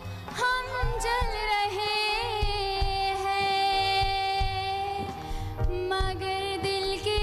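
Woman singing a ghazal-style song, holding one long wavering note for several seconds through a handheld stage microphone.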